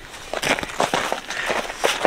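Irregular crunching and scuffling of feet and dog paws on packed snow as two dogs jump up and tussle with a person.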